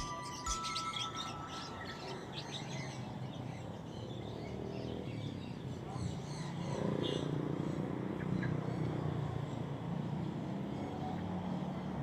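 Small birds chirping over the steady hum of street traffic, which grows a little louder about halfway through.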